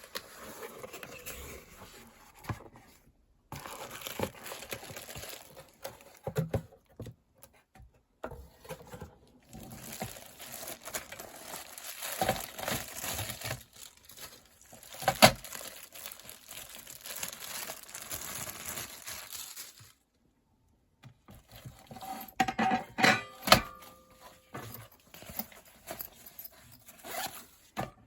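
Handling noise from a compact metal fire stand being unpacked and set up: rustling and crinkling of its bag or packaging, with light clicks and knocks of thin metal parts. Near the end, a few sharp metal clinks ring briefly.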